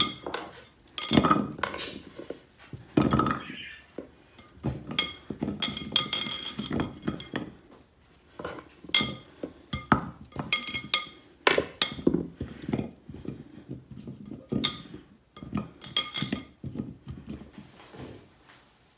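Pieces of raw carrot and potato set down one after another into a clay baking dish and onto a wooden cutting board, making irregular knocks and light clinks against the clay.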